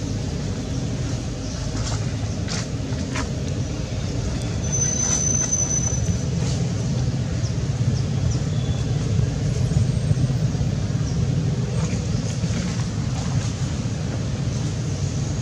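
Steady low rumble, with a few faint clicks and a brief high whistle about five seconds in.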